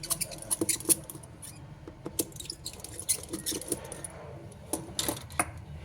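Irregular sharp clicks and light taps of small hard parts and tools being handled, over a steady low hum.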